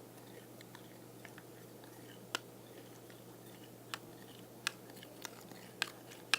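Glue-and-activator slime being mixed by hand, giving scattered small wet clicks and pops, about half a dozen sharp ones in the second half.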